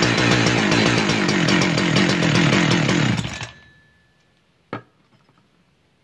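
Husqvarna 372XP's single-cylinder two-stroke chainsaw engine running steadily, then stopping about three and a half seconds in, followed by a single sharp click. This is a test run after replacing the carburetor's pump diaphragm and throttle spring.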